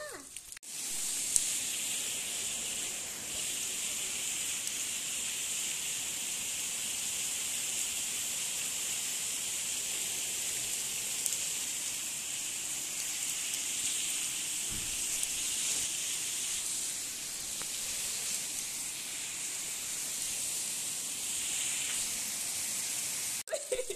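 Steady rain falling on a wet paved street, an even hiss that starts abruptly about half a second in and cuts off just before the end.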